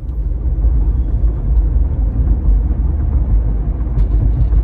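Steady low rumble of road and engine noise heard inside the cabin of a moving car.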